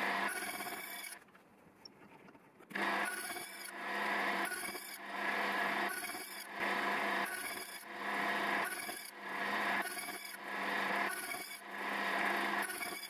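Slitting saw on a milling machine cutting the tooth spaces in a silver-steel gear-cutter blank, one slot after another: a cutting sound swells and fades about once every second or so over a steady motor hum. There is a break of about a second and a half near the start.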